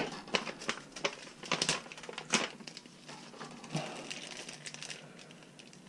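Small plastic parts bag crinkling and rustling as it is handled, with a few sharp crackles in the first couple of seconds, then softer rustling.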